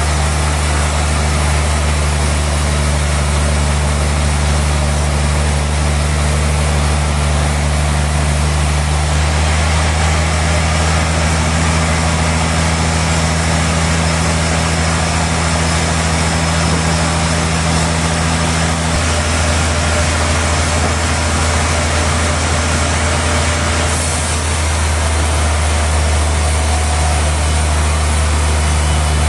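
Sawmill machinery running steadily under power, a loud even engine drone with a hiss over it; one of its low hum tones drops out about two-thirds of the way through.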